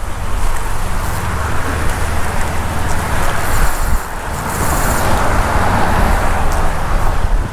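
Steady rushing noise of road traffic passing on the bridge, mixed with wind buffeting the microphone.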